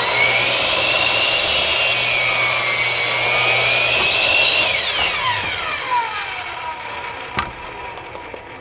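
Miter saw running and cutting through wood, its blade whine holding steady for about five seconds, then falling in pitch as the motor spins down after the trigger is let go. A short click comes near the end.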